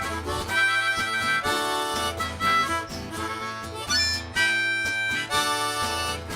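Live duo music in an instrumental break with no singing: a melody of held notes over a pulsing bass line.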